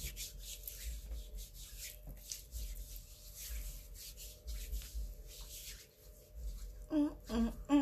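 Hands handling a phone that is recording, with fingers rubbing and scraping close to its microphone in a run of short scratchy rubs and a low rumble. Near the end come a few short voice sounds.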